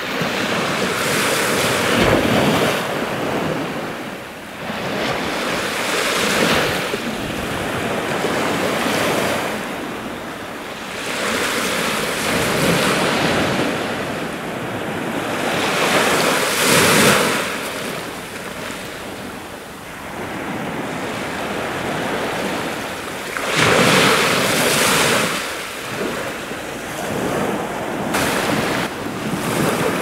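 Sea waves breaking and washing up the shore, the surf swelling and falling every few seconds, loudest about a third and about four-fifths of the way through, with wind buffeting the microphone.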